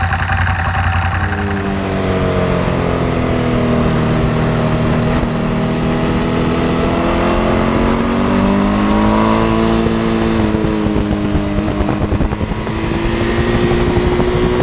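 Ducati Hypermotard 1100's air-cooled V-twin engine running on its stock exhaust, its revs rising and falling slowly.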